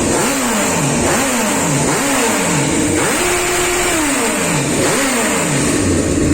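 Honda CB1000R inline-four revved repeatedly through its stock exhaust, which has been opened up with a drill to make it louder. The revs are blipped up and fall back about five times, one rev is held for about a second near the middle, and the engine drops back to idle near the end.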